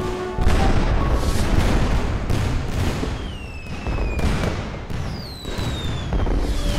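Aerial fireworks going off: a dense run of bangs, booms and crackle, with several whistling shells whose pitch falls in the second half. Music tones come back in near the end.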